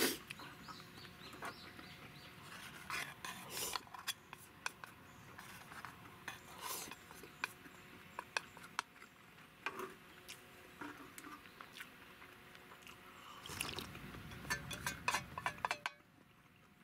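Chopsticks clicking and scraping against a metal mess tin while eating from it, in scattered short knocks with a busier run of scraping near the end.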